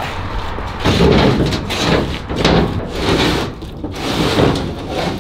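A wooden board being dragged and handled, scraping and rubbing in several uneven swells.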